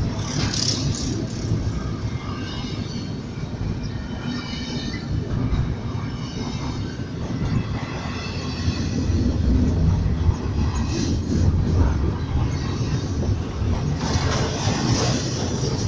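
Ferrosur freight train rolling past: a continuous low rumble of diesel locomotives and railcars, growing louder about nine seconds in, with faint high wheel squeal a few seconds in.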